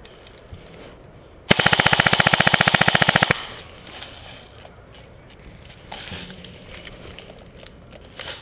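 JG M4 S-System airsoft electric gun firing one full-auto burst of about two seconds, a fast, even rattle of shots.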